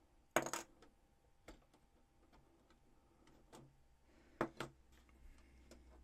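Hard plastic LEGO pieces clicking and snapping as window sections are pulled off a built model. One sharp click near the start is the loudest, followed by scattered lighter clicks and a quick pair past the middle.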